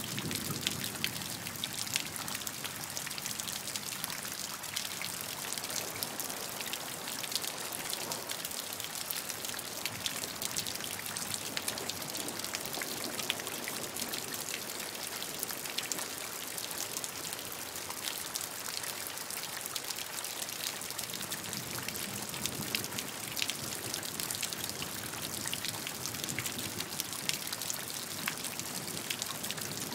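Steady rain falling: a dense patter of individual drop ticks over an even hiss.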